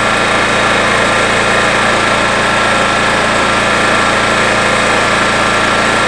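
Champion 5,000-running-watt inverter generator running steadily with no load and the choke fully in, an even engine drone that does not change. It reads about 68 to 69 dB from roughly six feet away.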